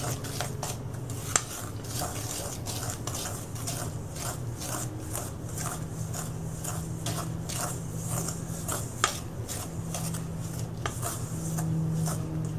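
Ceramic Chinese soup spoon stirring powdered sugar and milk into icing in a stainless steel bowl: a steady run of soft scrapes and taps against the metal, with a couple of sharper clinks.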